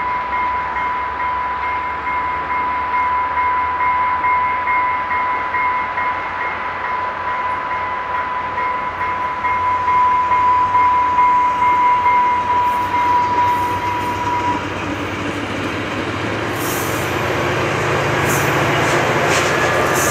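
A train running past, a steady rumbling rail noise. A thin, steady high-pitched tone sounds over it and stops about three-quarters of the way through, after which the train noise grows louder, with a few sharp clicks near the end.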